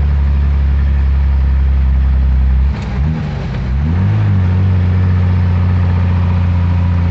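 Truck engine running steadily under load, heard from inside the cab. About three seconds in the engine note drops and its pitch dips and wavers for about a second and a half, then settles back to a steady pull.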